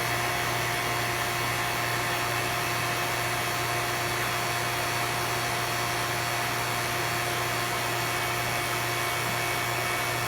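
Oil-sealed vacuum pump running steadily with an even hum, pulling a vacuum on a jar of water that is boiling at room temperature.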